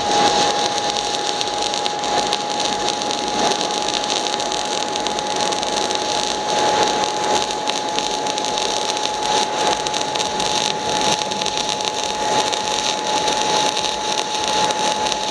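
Semiautomatic MIG/MAG welding arc from a 500-amp welder running a continuous bead on thick steel at high current: a steady, even hiss with a constant high tone under it.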